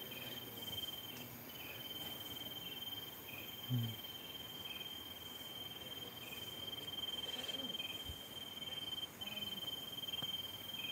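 Crickets at night: one holds a steady, unbroken high trill while another chirps about once a second. A brief low thump comes about four seconds in.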